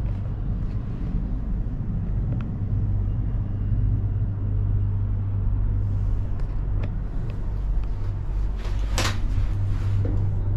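Steady low hum and rumble inside a moving cable car gondola as it travels along its cable, with a few faint clicks and a short burst of noise about nine seconds in.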